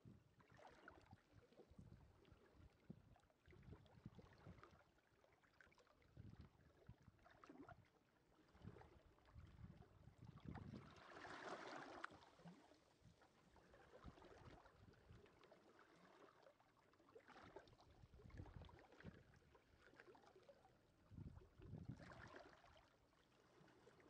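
Faint small sea waves lapping and washing on the beach in irregular swells, with a fuller wash about halfway through and another near the end.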